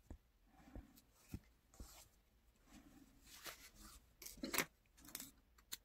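Faint rustling of fabric as a sewn cloth dog cape is handled and turned over, with a few slightly louder rustles between about three and five seconds in.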